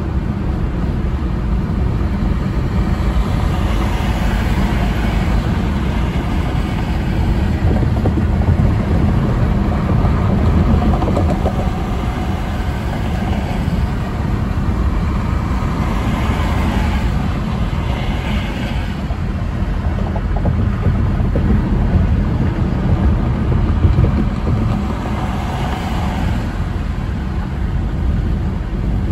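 Steady road and tyre noise of a car driving at highway speed, with a rushing hiss that swells and fades three times.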